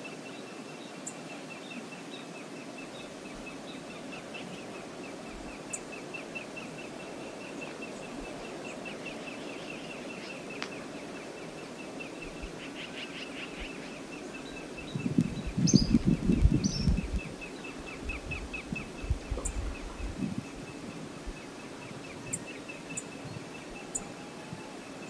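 Outdoor river ambience with a steady, rapidly repeating high chirping and a few brief bird calls. In the middle comes a couple of seconds of loud low rumbling, then a shorter, weaker stretch of the same.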